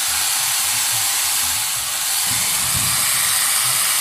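Handheld electric mini chainsaw running free with no load: a steady, loud, high whirr of the motor and spinning chain.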